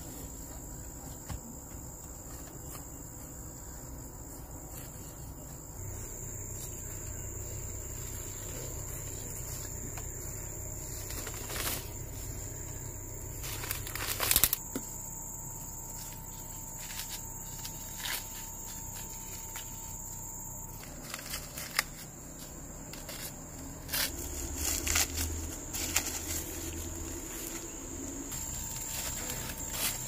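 Insects trilling steadily on one high pitch, with dry corn stalks and leaves rustling and crackling in short, irregular bursts as someone pushes through and handles them. The crackles are sharpest about halfway through and again in a cluster later on.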